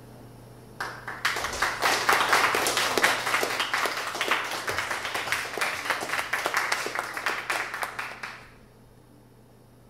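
Audience applauding at the end of a talk, starting about a second in and dying away a little before the end.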